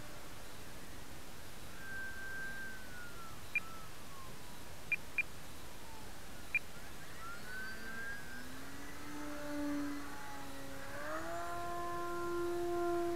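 Motor and propeller of a radio-controlled Visionaire airplane in flight: a whine that slides down and back up in pitch as the throttle changes, then holds a higher, steady note and grows louder near the end as the plane passes low. A few short ticks come in the middle.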